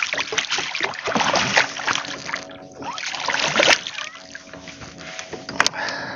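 Water splashing in irregular surges as a hooked school mackerel thrashes at the surface beside a kayak, with a sharp knock near the end.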